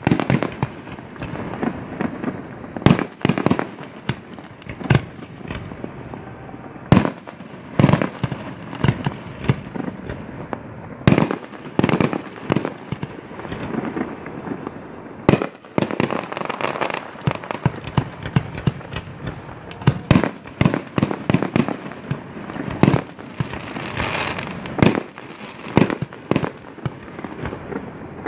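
Aerial fireworks launching and bursting in a rapid, irregular series of sharp bangs, some coming in quick clusters, with steady crackling between them.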